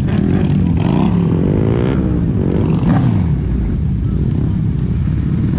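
Motorcycle engines running at idle close by, with one engine revved up and down between about one and three seconds in.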